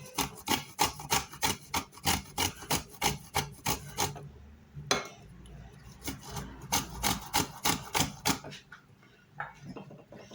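Fresh ginger grated on a hand grater in quick rasping strokes, about four or five a second, pausing briefly about four seconds in and again near the end.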